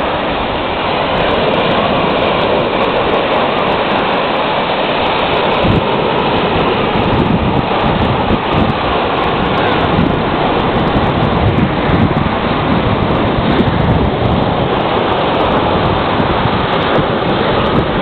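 Baltic Sea surf: small waves breaking and washing up a sandy beach in a continuous rush, with wind buffeting the microphone in irregular gusts.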